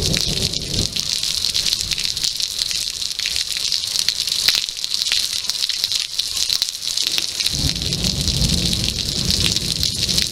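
Heavy rain pouring and splattering in a severe thunderstorm, a steady dense hiss full of drop clicks. A low rumble sits under it in the first second and comes back about seven seconds in.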